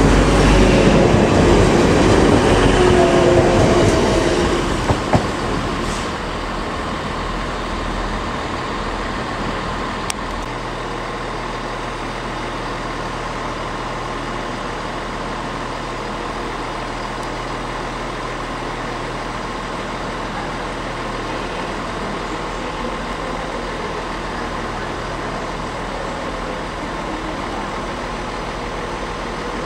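Passenger train running past along a station platform at speed, its loud rumble fading away over about the first four seconds. After that a steady, quieter rumble of the station and distant trains carries on, with a faint low hum and a couple of clicks.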